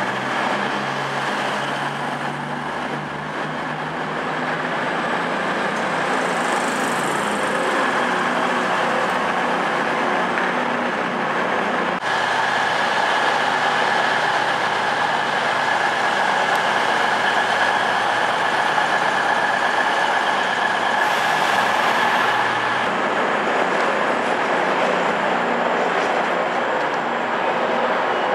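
Diesel multiple-unit trains on the move: a Class 185's underfloor diesel engines and wheels as it slides past close by, then, after an abrupt change about twelve seconds in, a Class 220 Voyager diesel unit running along the platform with a steady engine drone and a held high tone.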